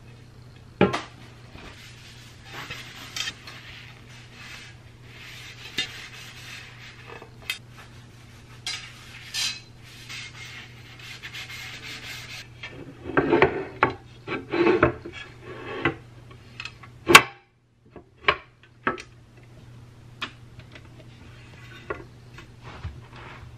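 A cloth rubbing over a nonstick grill plate as it is dried, then the plate clattering and knocking as it is handled and set down, with one sharp click and a few lighter clicks after.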